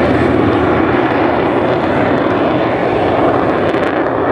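F-22 Raptor's twin Pratt & Whitney F119 afterburning turbofans roaring loudly and steadily as the jet makes a pass.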